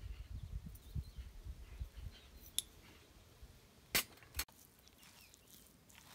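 Low rumble for the first couple of seconds, then two sharp clicks about four seconds in, followed by faint crackling as a spoon stirs chopped salad with mayonnaise in a plastic bowl.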